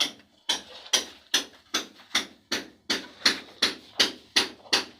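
Steady hammer strikes, about two and a half blows a second, each a sharp knock with a short ring.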